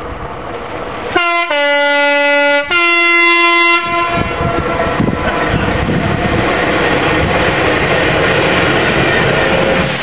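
Class 66 diesel freight locomotive's two-tone horn, sounded about a second in: a brief high note, a longer low note, then the high note again, about two and a half seconds in all. The locomotive and its hopper wagons then pass close by, with a steady rumble and clatter of wheels on the rails.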